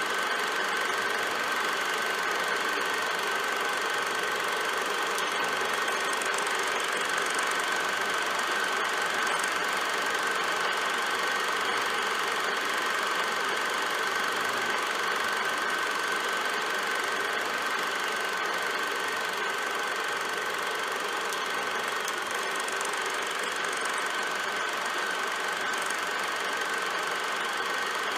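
Film projector running: a steady mechanical whirring and clatter with a constant high tone, unchanging throughout.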